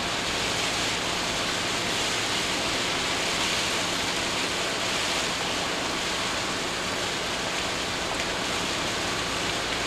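Steady road noise of a camper van driving in the rain, heard from inside the cab: tyres hissing on the wet road and rain on the windscreen, an even noise that does not change.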